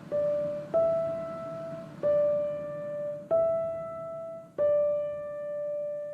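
Slow keyboard music, piano-like: single held notes struck about every second and a half, the last one left ringing and dying away.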